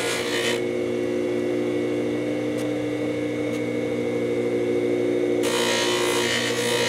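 Bench polishing motor running with a steady hum while a sterling silver ring is pressed against its spinning cloth buffing wheel, the contact adding a hissing rush near the start and again from about five and a half seconds in. A sharp click right at the start.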